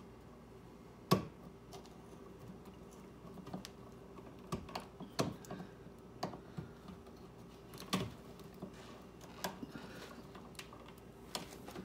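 Screwdriver clicking and scraping on the screws and metal parts of a wall receptacle: irregular sharp ticks and taps, the loudest about a second in.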